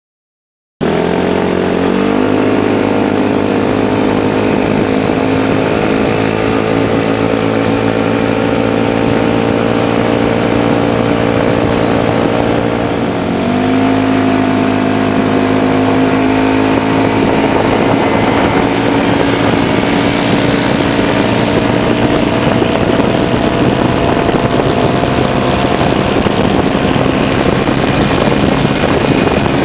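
150cc mini buggy engine running at full throttle in a drag race. It cuts in abruptly, and its revs climb quickly in the first seconds. The pitch then holds nearly steady and creeps upward, stepping up once after a brief dip about halfway through.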